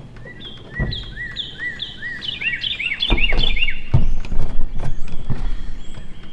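A songbird sings a quick series of repeated rising-and-falling notes that speed up and then stop a little past halfway. From about three seconds in, louder knocks and low rumbling handling noise close to the microphone take over.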